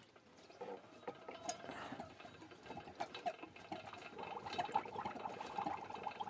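Diesel fuel spurting and splashing into a cut-open plastic bottle from the outlet pipe of a hand-turned SMD tractor-engine oil pump. The splashes are faint and irregular, and grow busier about four seconds in as the pump is turned faster.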